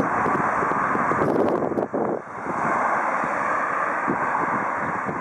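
Jet noise from a Boeing 777-300ER's GE90 turbofans as the airliner rolls out on the runway after touchdown: a steady rushing sound mixed with wind on the microphone, briefly dipping about two seconds in.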